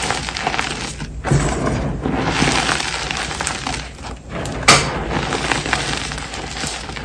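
Hands squeezing and scooping crushed gym chalk, a steady dense crunching and crackling of powder and small clumps. It pauses briefly twice between handfuls, and one sharp, louder crunch comes about two-thirds of the way through.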